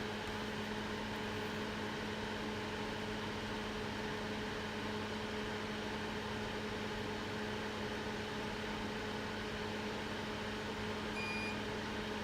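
Steady electrical hum and fan hiss of repair-bench equipment, with one short high electronic beep about 11 seconds in, from a multimeter during a check of the logic board for a short.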